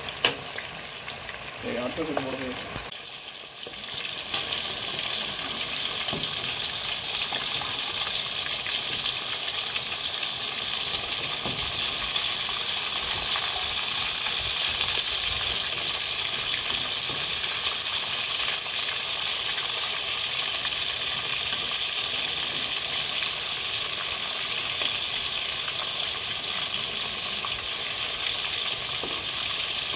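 Masala-coated fish pieces frying in hot oil in a pan: a steady sizzle that comes up to full strength about four seconds in.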